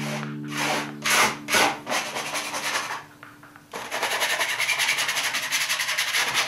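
A painting tool scrubbing on a canvas: a few separate scratchy strokes, a brief pause, then rapid, even back-and-forth rubbing strokes several times a second.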